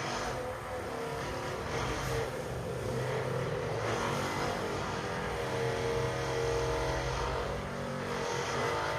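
A motor running with a steady hum that wavers slightly in pitch.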